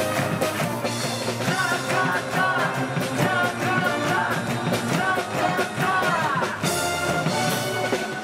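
Live cheering-section band music with a steady beat, and a crowd singing along.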